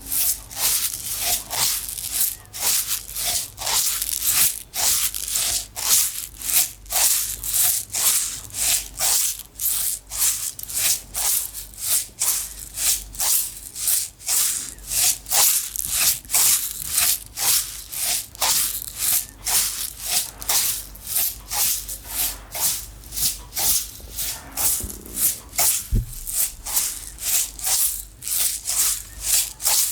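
A container of small dry loose items, toothpicks or sesame seeds, shaken back and forth in a steady rattling rhythm of about two shakes a second.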